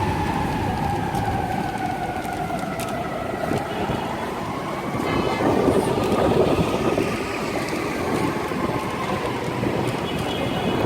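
City street noise with a siren wailing, its pitch falling slowly and then rising again. A train rumbles, loudest about six seconds in.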